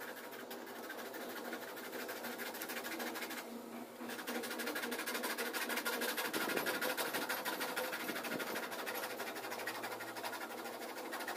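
A bare hacksaw blade held in the hand, sawing back and forth through a plastic water pipe in fast, steady strokes. It pauses briefly about three and a half seconds in, then carries on louder.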